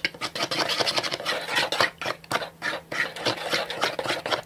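Plastic mixing wand stirring and scraping thick glue tinted with purple paint around a plastic bowl, in a quick run of short scraping strokes.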